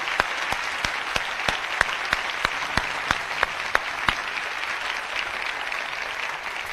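Studio audience applauding, with some single sharp claps standing out; the clapping thins a little after about four seconds.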